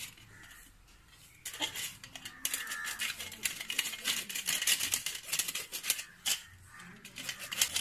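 Kitchen knife scraping the scales off a whole raw fish in quick, repeated rasping strokes, starting about a second and a half in.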